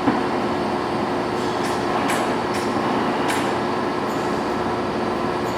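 Ticino EST420 gap lathe's spindle and headstock gearing running steadily at a set speed, a continuous mechanical hum with a few light ticks. A short knock right at the start.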